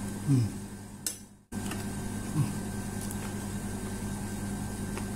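Steady low hum of room background noise, with a short falling "mm" from a voice near the start; the sound fades and briefly cuts out about one and a half seconds in, then the hum carries on.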